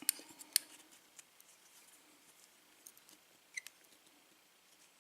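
A few small, sharp metallic clicks and taps from handling the opened padlock's parts and tools: two close together near the start, one more after a second, and a quick pair about three and a half seconds in.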